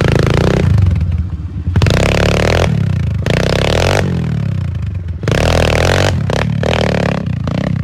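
Trail motorcycle engine revving hard in about five short bursts of throttle, dropping back briefly between each.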